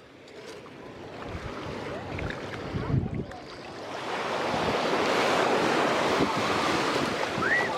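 Ocean surf washing in around the wader's legs, a steady rushing noise that swells over the first few seconds and stays loud through the rest, with wind buffeting the microphone.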